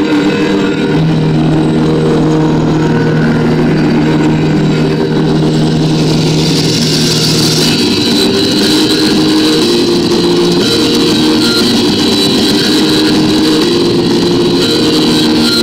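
Loud rock entrance theme for a wrestler, cutting in suddenly with dense, droning held notes that change pitch every few seconds.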